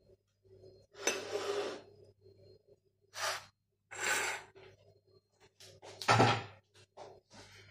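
Kitchen dishes and a serving utensil being handled: a few short scraping and rustling noises with quiet gaps between them, the loudest about six seconds in.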